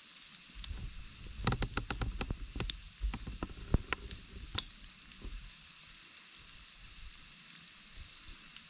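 Breaded chicken tenders sizzling in hot oil in a skillet over a campfire, with a steady hiss. A burst of sharp pops and crackles comes between about one and a half and five seconds in, then thins out.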